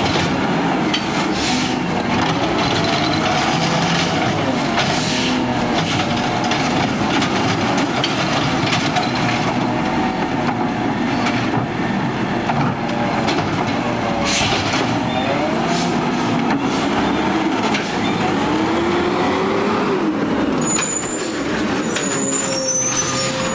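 McNeilus ZR automated side-loader garbage truck with its diesel engine revved hard, just short of the rev cut-out, its pitch rising and falling as the hydraulic arm grabs and dumps carts. Knocks of carts and arm sound over it, and a high squeal comes near the end.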